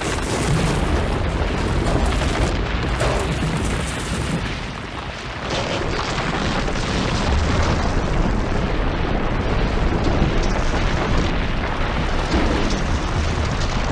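Long, loud, continuous deep rumbling roar with crackle on top, the sound of a huge natural blast such as an explosive eruption.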